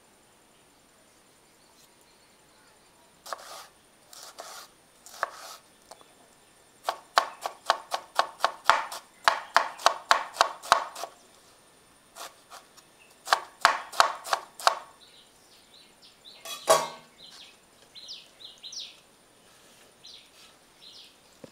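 Kitchen knife chopping banana flower florets on a wooden cutting board. The quick strokes come about five a second, in several runs with pauses between them.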